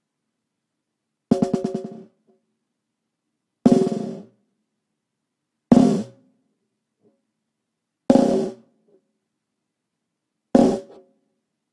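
A 14x7 segmented ipe-wood snare drum struck five times, about two to two and a half seconds apart, the first a quick run of rapid strokes. Each hit rings briefly with the shell's tone and dies away within about half a second.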